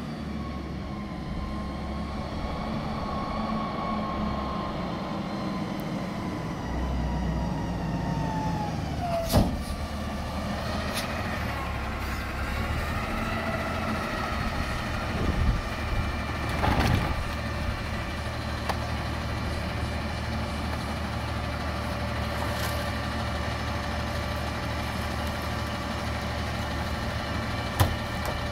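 Diesel engine of an Autocar ACX McNeilus front-loader garbage truck, its pitch falling as the truck slows to a stop, then idling steadily. A sharp short burst about a third of the way in, a few knocks a little past halfway, and a sharp bang near the end stand out over the idle.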